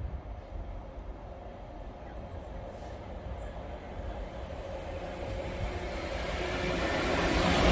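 A train approaching along the track, its rumble and rail noise growing steadily louder through the second half.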